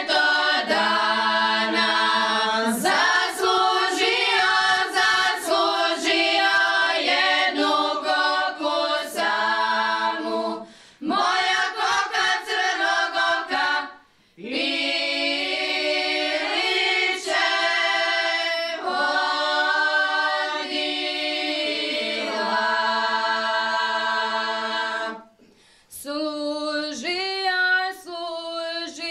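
Women's folk singing group singing a Šokac folk song a cappella in long, held phrases, breaking off briefly between phrases, about halfway through and again near the end.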